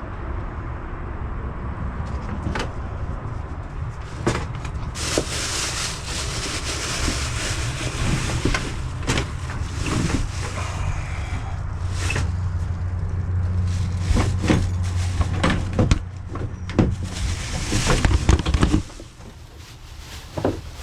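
A vehicle engine running with a steady low rumble, with repeated knocks and rattles over it; the rumble cuts off suddenly near the end.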